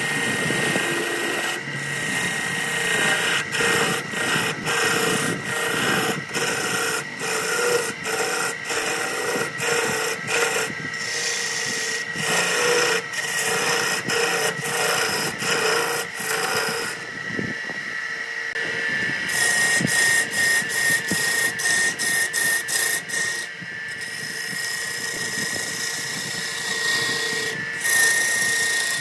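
Wood lathe turning a tiered wooden fruit dish while a hand-held turning tool scrapes and cuts into the spinning wood in repeated strokes, throwing shavings, over a steady high whine. The cutting eases off briefly a little past halfway, then resumes.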